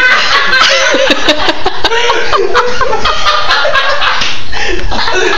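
People laughing hard, several voices overlapping in fits of giggles and cackles.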